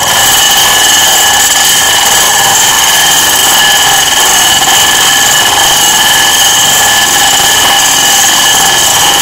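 Electric food chopper's motor running steadily at full speed, a loud, even whine with its blade churning through chopped chocolate.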